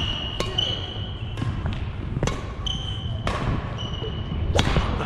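Badminton rally: sharp racket-on-shuttlecock hits roughly once a second, with short high squeaks of court shoes on the hardwood gym floor between them.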